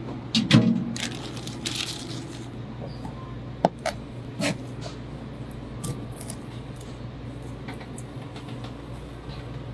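Plastic bag crinkling and rustling, then scattered sharp clicks and taps of a knife against a plastic cutting board as the legs and feelers of a shellfish are cut off, over a steady low hum.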